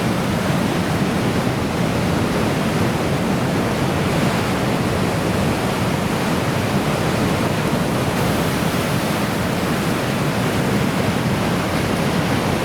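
Heavy typhoon-swell surf breaking, a loud, steady rush of churning white water with no pauses or distinct crashes.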